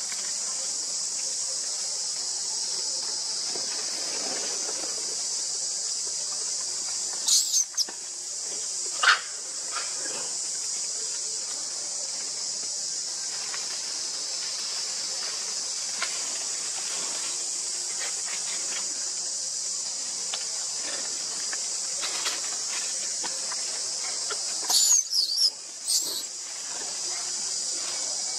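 A steady, high-pitched chorus of insects drones throughout. A newborn macaque cries twice with short, high, squeaky calls: a burst about seven seconds in, and another cluster around twenty-five seconds in.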